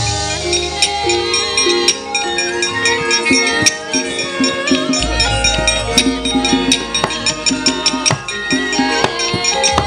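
Javanese gamelan playing for a wayang kulit shadow-puppet show: bronze metallophones with sharp knocks throughout. A deep low note enters about halfway and rings on.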